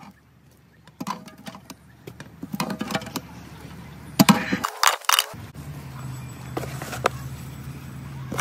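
Metal ladle clinking and scraping against a large aluminium pot as cooked rice is layered over chicken for dum biryani, with the sharpest clatter about four to five seconds in.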